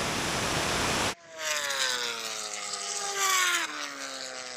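High-speed wind and road rush, then a sudden cut about a second in to a vehicle's drivetrain tone that falls steadily in pitch as it slows after the run.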